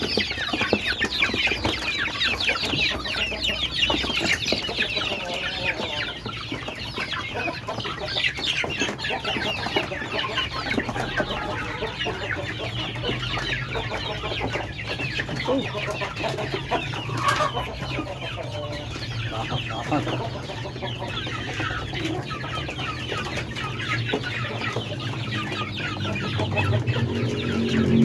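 Flock of young kampung chickens clucking, a dense mass of many overlapping high-pitched calls, busiest in the first few seconds.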